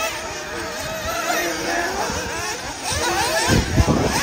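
Several nitro RC buggy engines buzzing around the track, their pitch rising and falling as they rev and brake. A few loud low bumps come near the end.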